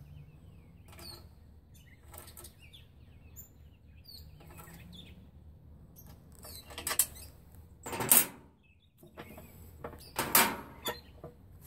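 Steel pedal tractor frame and its drive chain being handled during reassembly: light clicks and rattles, then a few louder metal knocks and scrapes about seven, eight and ten seconds in as the frame is shifted.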